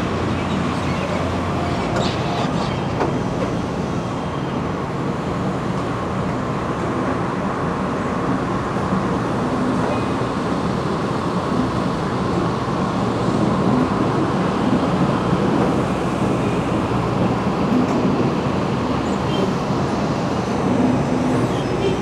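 Apple packing-line machinery running: a steady mechanical din with a low hum, from the bin washer, wet bin dumper, roller conveyors and water flume.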